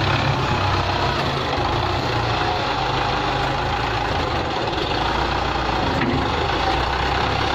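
Belarus 510 tractor's diesel engine running steadily while it works a front loader, driving up to a trolley with the bucket raised to tip its load.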